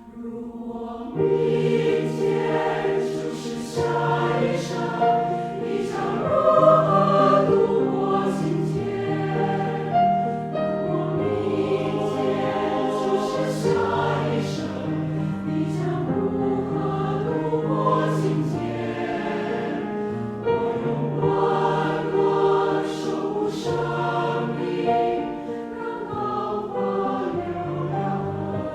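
Choir singing a slow Chinese-language choral song with piano accompaniment; the full choir comes in about a second in after a brief quiet moment.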